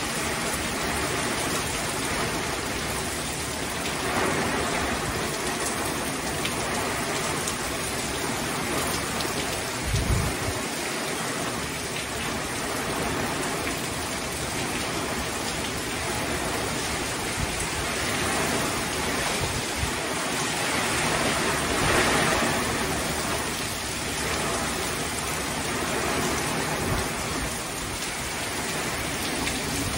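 Heavy tropical-storm rain pouring down onto a swimming pool and yard: a steady hiss that swells and eases in gusts. A brief low thump about ten seconds in.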